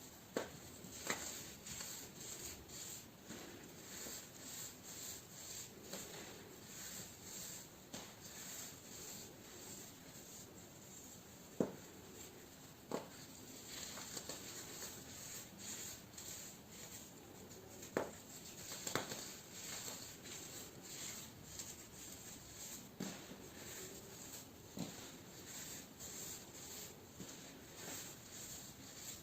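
Baking soda being crunched and rubbed close to the microphone: a soft, continuous gritty scratching, with a handful of sharper cracks now and then.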